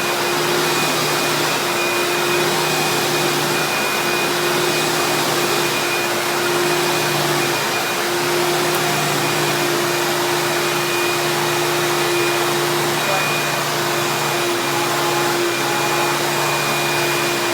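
1998 Eureka Boss Plus vacuum cleaner running loudly and steadily, its motor giving a constant hum with a thin high whine above it.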